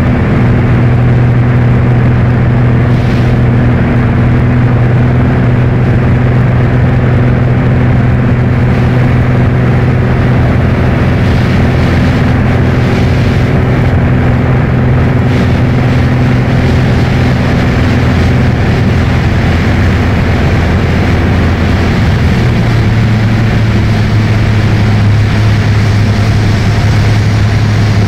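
Piper PA-28 Arrow's piston engine and propeller in flight, heard from inside the cabin: a loud, steady drone whose note drops a little about three quarters of the way through.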